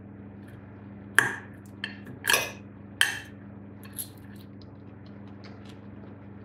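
Knife and fork clinking and scraping against a plate while cutting food: a sharp clink about a second in, a quick clink and a longer scrape around two seconds, another clink at three seconds and a faint tap at four. A steady low hum runs underneath.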